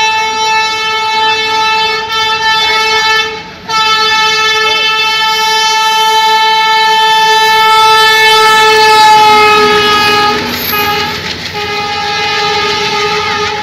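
Train locomotive horn blowing a loud, steady blast that breaks off briefly about three and a half seconds in, then is held again for nearly ten seconds. Its pitch drops a little about ten seconds in as the locomotive passes, and the rumble and clatter of coaches rolling past rise under it near the end.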